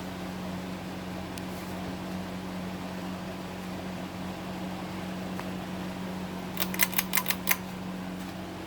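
2001 Hampton Bay Carriage House 52-inch five-blade ceiling fan running, a steady hum over the rush of air. Near the end comes a quick run of about six sharp clicks within a second.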